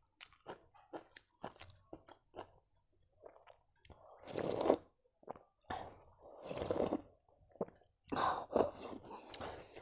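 Close-up eating sounds: a few seconds of chewing with small wet mouth clicks. Then, from about four seconds in, several long, loud slurps of hot buffalo-meat soup sipped from a steel bowl.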